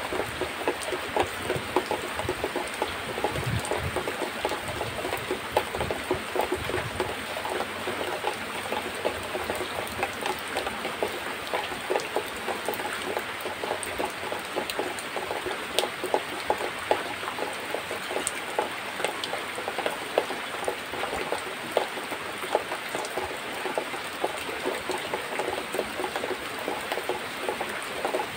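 Cow being milked by hand: jets of milk squirting into a plastic bucket partly full of milk, in a steady, rapid run of short spurts.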